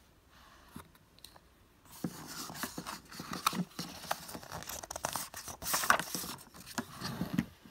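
Pages of a hardcover picture book being turned by hand: paper rustling and crackling with sharp little ticks, starting about two seconds in and lasting until just before the end.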